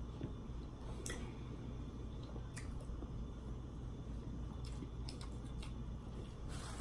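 Eating sounds: a metal fork tapping and scraping a plate a few times as food is picked up, with soft chewing and a steady low hum underneath.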